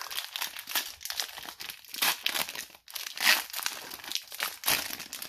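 The foil wrapper of a Pokémon trading card booster pack crinkling and tearing as it is ripped open by hand and the cards are pulled out, in a quick, continuous run of crisp rustles with a short lull about three seconds in.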